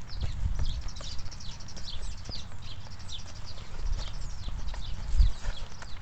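Muffled hoofbeats of an Appendix Quarter Horse trotting on grass, dull low thuds with a heavier one about five seconds in. Many short, high, falling chirps of birds sound in the background.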